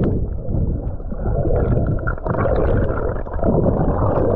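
Muffled rumbling and gurgling of churning seawater and bubbles, heard through a camera held underwater.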